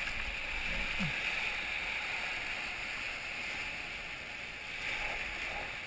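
Steady rush of churning whitewater in a river rapid around a raft.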